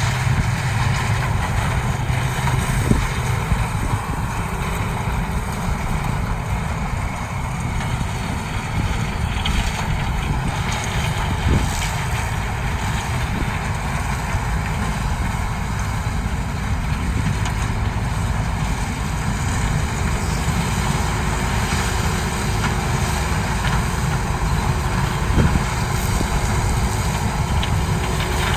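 CLAAS Mega 204 combine harvester running steadily while harvesting corn, with three faint knocks spread through.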